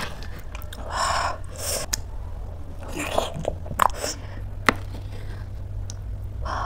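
Close-miked eating sounds: a metal spoon scraping and clicking in a wooden bowl of oatmeal, with chewing and wet mouth sounds, over a low steady hum.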